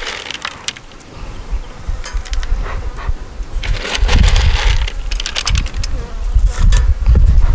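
Honeybees buzzing around an open hive, with scattered sharp clicks. A strong low rumble sets in about four seconds in.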